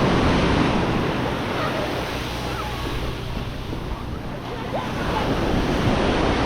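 Sea waves washing onto the beach, swelling and ebbing: loud at first, easing off in the middle and building again near the end, with wind buffeting the microphone.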